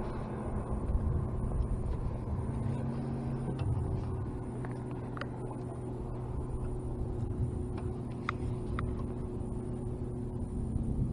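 Steady low hum of a boat's electric trolling motor, with rumble on the microphone and a few faint ticks.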